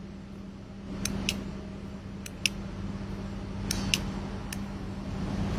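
Metal cigar lighter clicking as a cigar is lit: sharp clicks, mostly in pairs about a quarter-second apart, three times and then once more, over a low steady hum.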